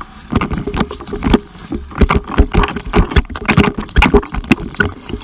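Jet ski running fast over the sea: a steady engine tone under dense, irregular rough bursts of noise from the ride.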